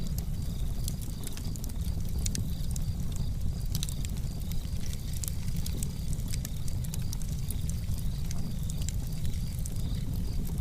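Fire crackling: frequent sharp pops and snaps over a steady low rumble.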